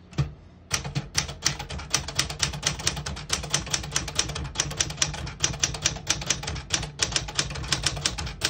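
1972 Smith-Corona Sterling manual portable typewriter being typed on quickly: a single click, then a fast, steady run of keystrokes, the typebars striking at about five or six a second, with one short pause about seven seconds in.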